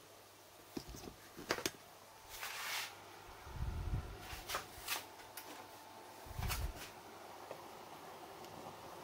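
Kitchen handling sounds: scattered light clicks and knocks, a brief rustle about two and a half seconds in, and two dull thumps, under a faint steady hum.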